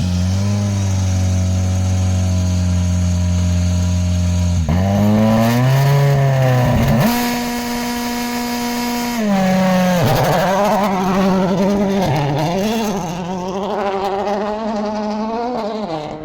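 Race car engine held at steady revs for several seconds, then the revs drop and climb again, hold steady once more, and waver up and down near the end.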